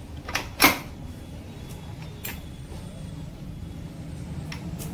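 Sharp metal clicks as a gear selector fork and gears are worked onto the shafts in a Royal Enfield Bullet gearbox casing: two close together about half a second in, then single fainter ones later, over a steady low rumble.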